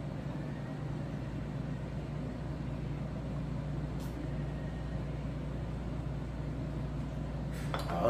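Steady low room hum, with a faint click about halfway. Near the end come a few light clinks as a small drinking bowl is set back down on the table.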